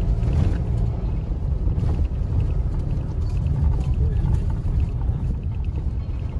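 Steady low rumble of a car driving on an unpaved dirt road, heard from inside the cabin: tyre and engine noise with a few faint ticks.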